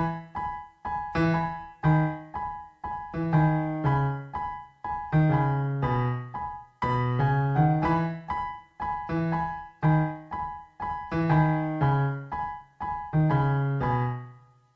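Background piano music: a gentle melody of struck notes and chords, each ringing and fading, that dies away at the end.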